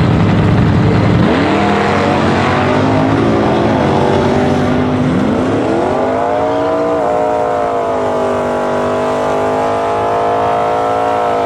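Drag-racing cars launching and running down the strip at full throttle. A loud rough rumble gives way about a second in to engine notes climbing in pitch through the gears, held high, then starting to drop near the end as the throttle closes.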